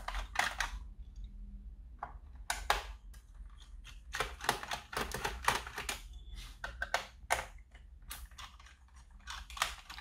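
Irregular clicks and taps of a small screwdriver working the screws out of an Acer Aspire E15 laptop's plastic bottom panel, with the plastic case knocking under the hands.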